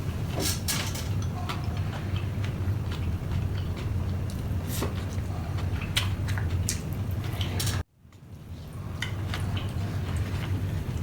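Close-miked eating sounds: chewing and small clicks and taps from utensils, over a steady low hum. About eight seconds in the sound cuts out abruptly and fades back up.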